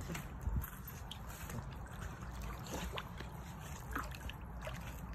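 Golden retriever paddling through a swimming pool: soft, steady sloshing and lapping of water, with a few small splashes.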